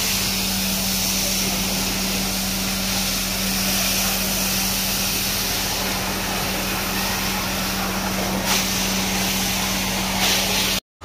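Fire hose spraying water onto wet concrete with a steady hiss, over the even drone of the fire truck's pump engine running. Both cut off suddenly near the end.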